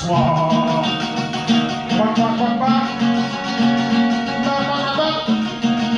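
Solo acoustic guitar strummed and picked in a steady rhythm, repeating the same low chord pattern.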